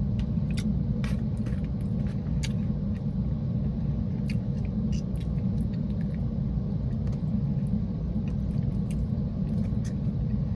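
Steady low rumble inside a car's cabin, with scattered small clicks and chewing sounds from eating.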